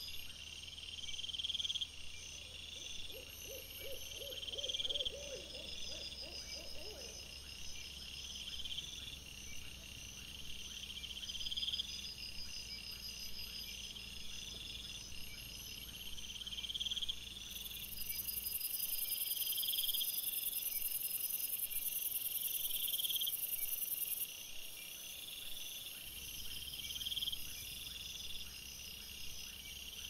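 Night-time outdoor ambience from a trail camera, sped up four times: a high, insect-like chirp repeating about every second and a half, with a short wavering call about three seconds in.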